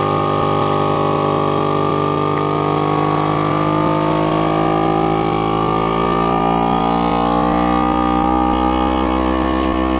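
Electric countertop vacuum sealer's pump running, drawing the air out of a plastic bag of lentils before sealing. It is a steady motor hum whose pitch sags slightly over the seconds.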